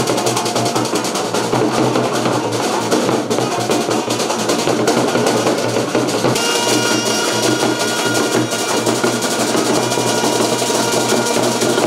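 Street band playing: a bass drum and side drums beating quickly and steadily, with a saxophone melody that stands out more clearly from about six seconds in.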